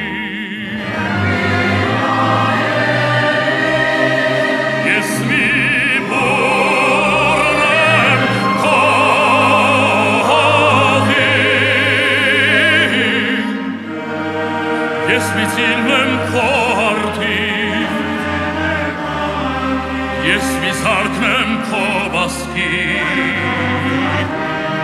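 A male solo singer in operatic style singing a slow, sustained melody with wide vibrato, accompanied by a full symphony orchestra.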